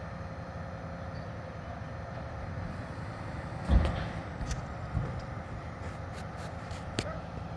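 Autocar ACX front-loader garbage truck's engine running steadily. A loud thump comes about four seconds in, followed by several sharp metallic clanks.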